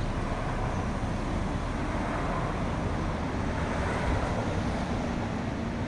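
Citroën C4 Lounge rolling slowly off the throttle: steady road and tyre noise with a low rumble from underneath, and one brief louder moment about four seconds in. It is driven this way to bring out a noise in the suspension.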